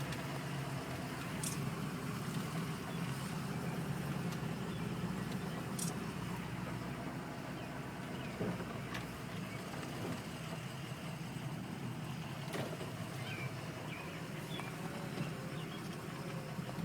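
Steady engine hum and road noise of a car driving, with a few faint clicks.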